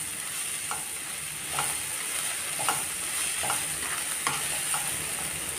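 Spatula stirring drumstick flowers and onions in a nonstick kadai, with a short scraping stroke about once a second over the steady sizzle of the frying.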